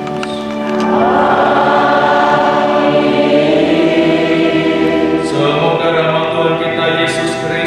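A group of voices singing a hymn together in long held notes, moving to a new note twice.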